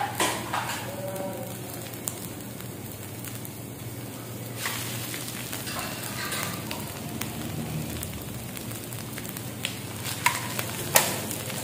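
Sliced vegetables sizzling in oil on a flat griddle, a steady frying hiss. Near the end a few sharp knocks as shredded roti is tipped onto the griddle from a large pot.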